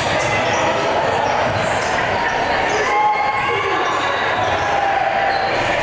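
Sounds of a youth basketball game in a gym: a basketball bouncing on the court amid a steady din of voices.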